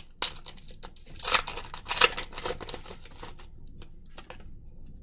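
Foil wrapper of a 2020 Score Football trading card pack being torn open and crinkled, with the loudest rips about a second and a half and two seconds in, then lighter crackling.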